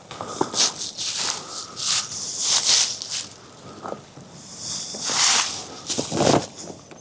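Footsteps and rustling through dry leaves and brush, in irregular crunching bursts close to the microphone.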